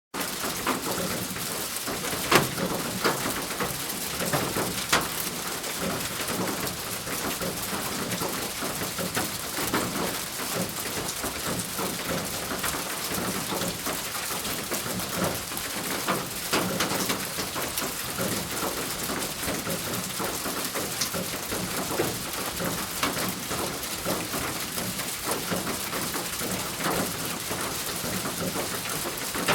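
Steady rain drumming on a thin roof, a dense patter with individual louder drops striking here and there.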